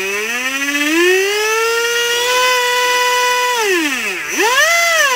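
Rebuilt Tekin Pro4 4600kV brushless motor spinning unloaded, driven sensorless by a Castle MMP speed controller: its electric whine rises with throttle, holds steady for about a second, drops almost to a stop, then rises briefly again and falls away near the end. It is the motor running again after being repaired from a seizure.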